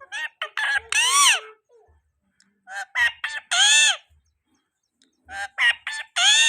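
A parrot calling three times, each phrase a few quick short notes ending in one long note that rises and falls.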